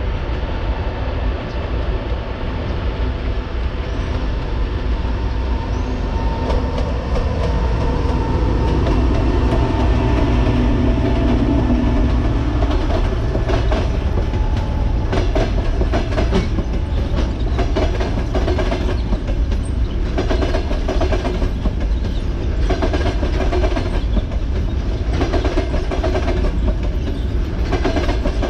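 EP20 electric locomotive approaching and passing with a steady hum and whine, then express passenger coaches rolling past, their wheels clacking over the rail joints in repeated groups from about a third of the way in.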